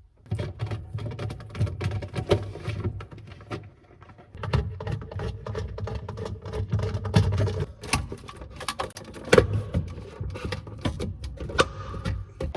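Two small screws being backed out of a refrigerator's plastic light housing with a power screwdriver: the motor runs with irregular clicking and rattling in two stretches, with a short pause about three and a half seconds in.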